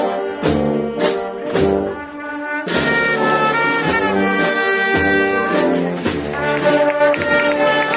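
Brass band playing a slow procession march. Drum beats come about twice a second at first, and from about three seconds in the brass hold sustained chords under a melody.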